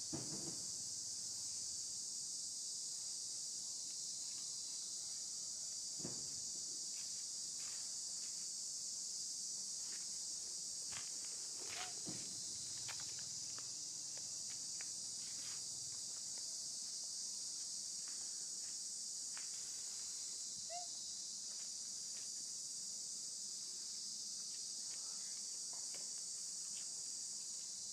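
Steady, high-pitched insect chorus that runs without a break, with a few faint clicks and taps scattered through it.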